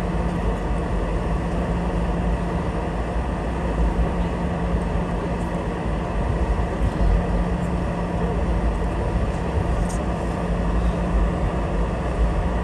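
Cabin noise inside a Boeing 717 rolling on the ground after landing: its rear-mounted Rolls-Royce BR715 engines run near idle, giving a steady low hum over a continuous rumble from the airframe and wheels.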